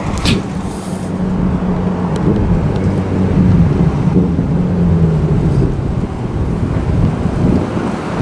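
Suzuki Hayabusa motorcycle's inline-four engine running as the bike comes up and rides past, a steady drone that grows louder over the first few seconds.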